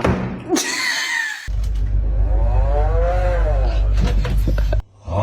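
Door creaking as it swings: a high wavering squeal for the first second and a half, then a long groan over a low rumble whose pitch rises and falls, cutting off sharply near the end.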